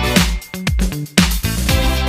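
Background music with a steady dance beat and bass line.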